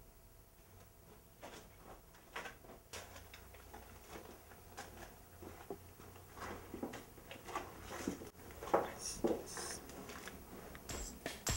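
A series of faint, irregular clicks and knocks, coming closer together and a little louder toward the end, over a low hum.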